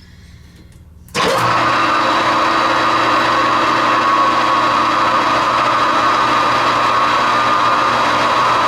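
Metal lathe switched on about a second in and running steadily, its motor and gearing giving a loud, even hum with a held tone.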